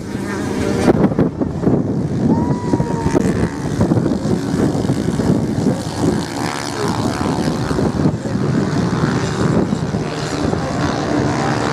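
Several off-road motorcycles racing on beach sand, their engines running together and growing louder and softer as the bikes pass.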